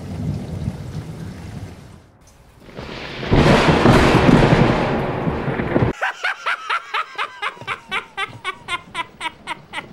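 Rain and a thunderstorm, with a loud thunderclap about three seconds in that stops abruptly near the middle. Music follows: a quick run of short pitched notes, about three a second.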